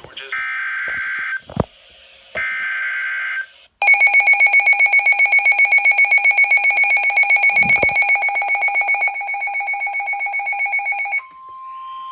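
Emergency Alert System tones: two one-second bursts of the screeching SAME digital header data, then a fast, loud pulsing electronic alert beep for about seven seconds. Near the end it switches to a steady single-pitched tone, the National Weather Service's 1050 Hz warning alarm tone.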